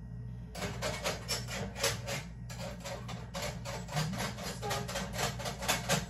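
Paper towel rubbing back and forth on a hard surface, a quick series of scrubbing strokes at about four a second.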